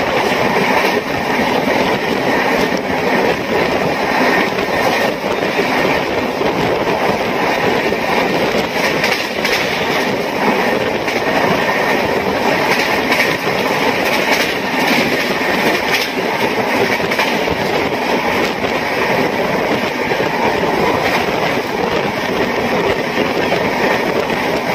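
Express passenger train running at speed: a steady, loud rush of wheel and track noise with the clatter of wheels over rail joints.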